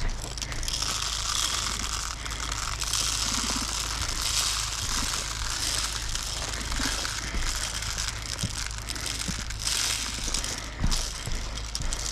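Uneven rustling and crunching of dry undergrowth and leaves as a player moves through brush, with a few sharp clicks.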